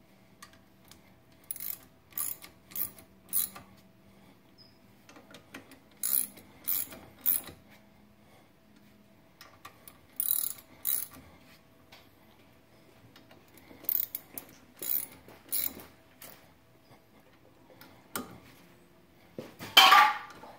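Ratchet wrench clicking in short groups of strokes, three or four at a time with pauses between, then a louder clank near the end.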